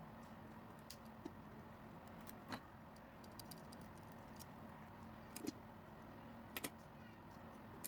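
Faint, scattered small clicks and taps, about ten of them at uneven intervals, the sharpest a little past the middle and again about two-thirds through, over a steady low hum.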